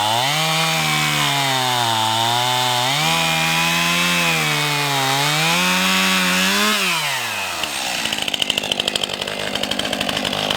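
Two-stroke chainsaw at full throttle cutting through a hard black locust fence post, its pitch dipping and recovering as the freshly sharpened chain bites. About seven seconds in the cut finishes and the engine falls back to a lumpy idle.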